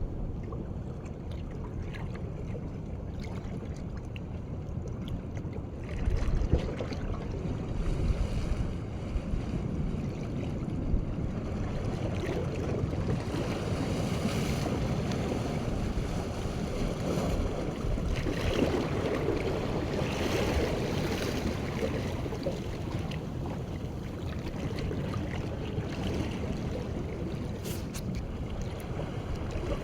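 Wind buffeting the microphone over the wash of waves on the shore, a steady noise that swells in gusts.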